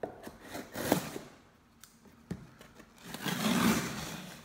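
Pocket knife slitting packing tape on a cardboard shipping box in short scrapes and clicks. About three seconds in comes a longer ripping rasp as the tape is peeled off the cardboard.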